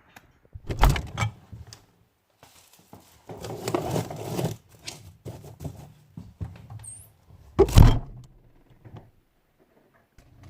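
Handling noises: a thump about a second in, a stretch of rustling and clattering around four seconds, and a louder thump near eight seconds.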